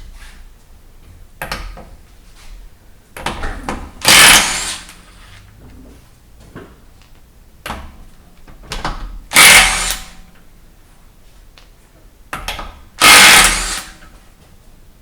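Impact wrench spinning loosened lug bolts off a car's rear wheel in three short bursts, a few seconds apart, with lighter knocks in between.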